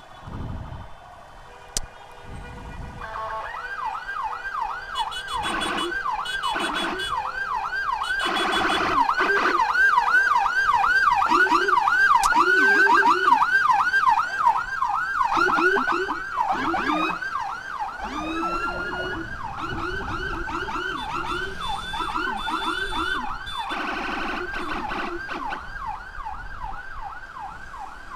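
Electronic emergency sirens in a fast yelp, about two to three sweeps a second, starting about three seconds in. The sirens grow louder toward the middle and then ease off somewhat. A second, lower-pitched yelping siren joins partway through.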